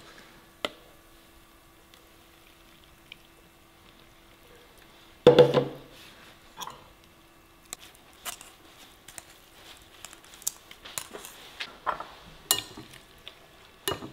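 Blended coconut and water being pressed through a stainless mesh sieve into a glass bowl with a silicone spatula: soft squishing and scraping of the pulp, liquid dripping through, and light clicks of metal on glass. One louder clunk comes about five seconds in.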